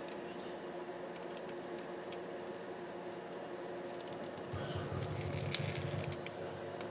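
Small clicks and taps of hand tools and small drive parts being handled on a table, over a steady low hum. About four and a half seconds in there is a short stretch of duller rumbling handling noise, with a couple of sharper clicks.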